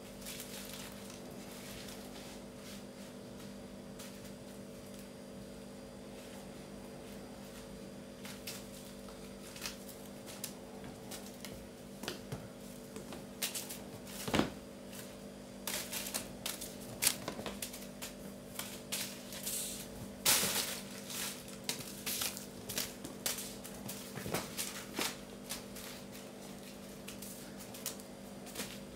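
Burmese kittens playing and pouncing on a tiled floor: scattered taps, clicks and scrabbles of paws and claws on tile with a few light thumps, sparse at first and busiest in the second half, over a steady low hum.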